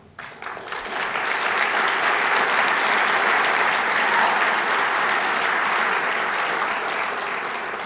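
A large seated audience applauding: the clapping builds within the first second, holds steady, then tapers off near the end.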